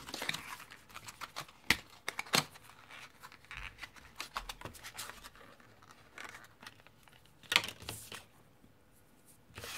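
Rustling and crinkling of plastic packaging as a small plastic cable organizer is handled and pulled out, with a few sharp clicks of plastic on plastic.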